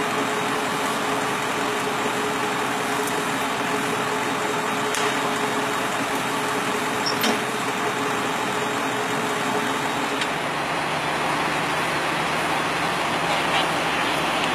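A fire engine's engine running steadily under a continuous hiss, with a constant hum that stops about ten seconds in and a couple of faint clicks.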